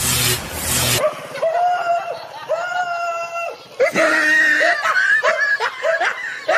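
A dog yelping in fright: two drawn-out high cries, then a quick run of short yelps from about four seconds in. A burst of loud noise fills the first second.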